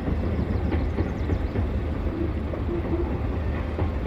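Freight train cars rolling across a high railway trestle bridge, a steady rumbling noise with a few faint clicks.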